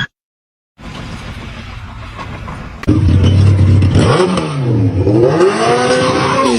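A vehicle engine revving, its pitch rising and falling several times, starting suddenly about three seconds in after a stretch of steady noise.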